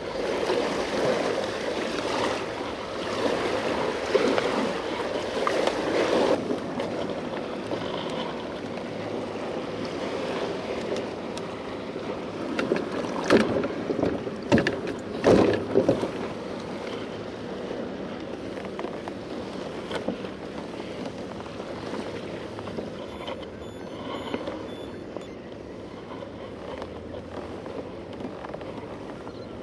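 Water sloshing and splashing against a Hobie Pro Angler 12 kayak's plastic hull as it moves through choppy harbour water, busier in the first few seconds, with wind on the microphone. A few sharp knocks come about halfway through.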